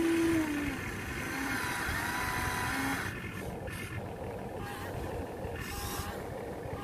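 Huina 1593 radio-controlled excavator's small electric motors whining as the boom and bucket move, the whine rising and falling in pitch, then turning lighter and rougher about halfway through. A short 'ooh' from a voice opens it.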